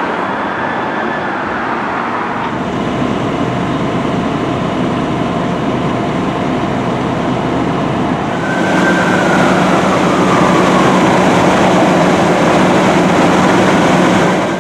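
Pierce Arrow XT fire engine responding under siren: the siren wails down in falling pitch sweeps over the steady noise of the truck's engine and traffic. Louder from about 8 seconds in, when another wail sweeps down.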